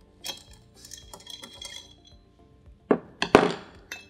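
Small metal parts of an FX Impact air rifle clinking and ringing lightly as a hex key works the scope rail and cheek rest screws. About three seconds in come a few sharper knocks and a brief scrape as the parts are lifted off.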